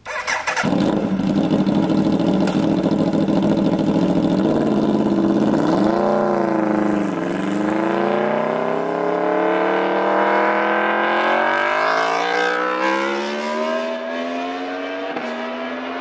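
Aprilia RSV4's 65-degree V4 motorcycle engine accelerating away, with the uneven firing of its 180-degree crank: steady revs at first, a quick rise and drop about six to seven seconds in as it shifts up, then a long climb in pitch through the next gear as it pulls away and grows fainter.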